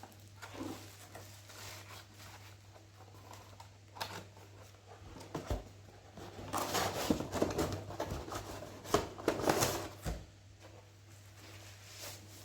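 Laptop packaging being handled during unboxing: a few separate clicks, then about three and a half seconds of rustling and crinkling with sharp clicks, over a steady low hum.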